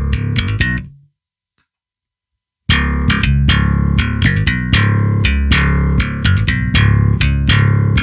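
Electric bass played through a chain of Caline effects pedals, including the CP-60 Wine Cellar bass driver DI, straight into a mixer: a busy line of quickly plucked notes. About a second in the signal cuts out to complete silence, and the playing comes back in abruptly near three seconds in.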